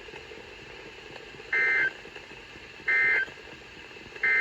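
Three short Emergency Alert System SAME data tones from NOAA Weather Radio, about a second apart, over faint receiver hiss. This is the end-of-message code that closes the alert.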